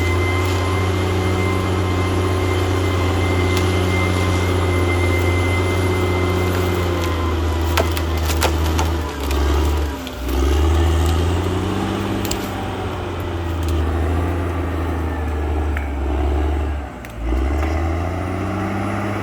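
CAT D6R XL bulldozer's diesel engine running steadily under load. The engine note dips briefly about halfway through and again near the end, and a few sharp cracks come just before the first dip.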